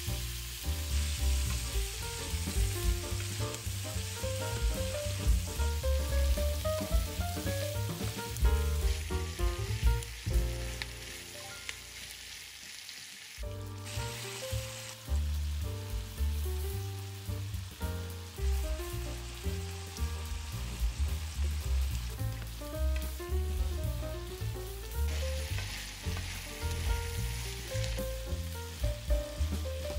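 Beef strips with onion and red bell pepper sizzling in a hot frying pan as they are stirred, under background music with a steady bass beat. The sizzle drops back for a few seconds around the middle, then returns.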